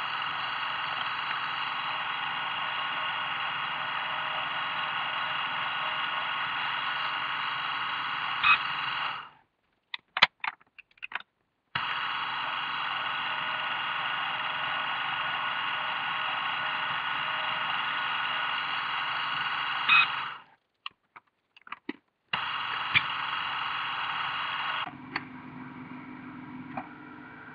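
Milling machine spindle running as a drill bores holes in a steel block. The running stops abruptly twice, with a few sharp clicks in each gap. About 25 seconds in it gives way to a quieter, lower steady hum as a tapping head cuts a thread.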